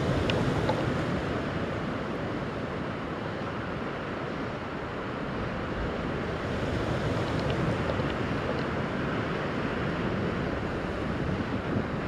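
Steady wind buffeting the microphone over rushing, choppy water: an even noise with no clear engine note.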